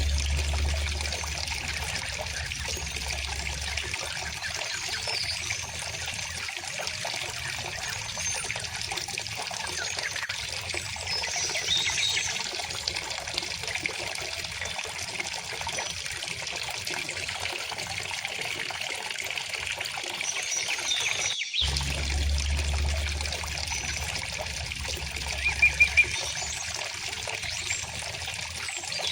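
A river or stream flowing steadily, a continuous trickling rush of water, with faint, scattered bird chirps high above it. The water cuts out for an instant about two-thirds of the way through, then resumes.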